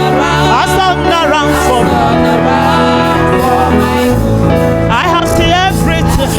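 Church music: a voice singing with vibrato over held instrumental chords, the bass changing chord about four seconds in.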